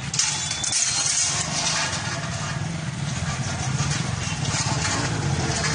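A motor vehicle engine idling with a steady low chugging, over a hiss of street noise.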